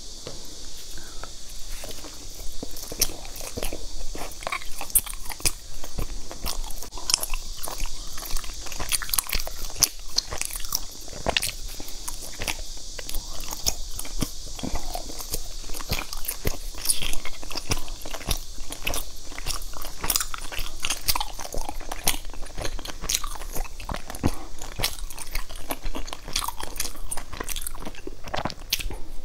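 Close-miked chewing and biting of soft, sticky glutinous-rice cakes, with many quick wet mouth clicks and smacks over a steady high hiss.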